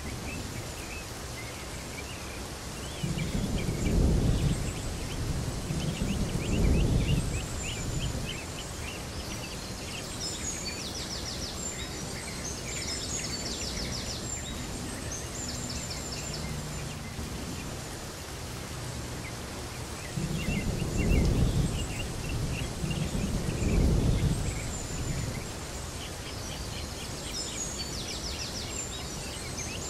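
Outdoor nature ambience: birds chirping in quick repeated runs over a steady hiss. Deep rumbles swell up and fade away twice, a few seconds in and again about two-thirds of the way through.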